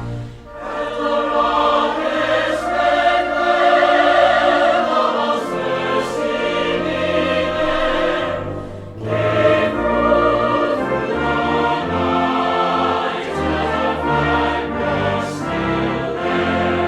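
Background music: choral and orchestral music with sustained sung voices, dipping briefly about half a second in and again about halfway through.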